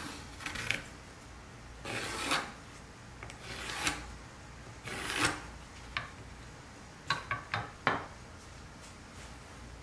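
Pencil scratching on a pine board along the steel blade of a try square: three drawn strokes of about half a second each, then a quick run of four short marks.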